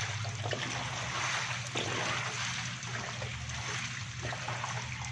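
Shallow water trickling and splashing as hands and a plastic scoop work through a tank crowded with live stinging catfish, with small splashes scattered throughout and a steady low hum underneath.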